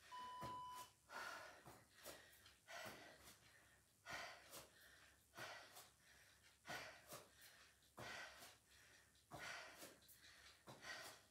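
A person breathing hard in short, forceful puffs, in and out about once a second, from the effort of a plank renegade-row exercise. A short electronic beep sounds just at the start.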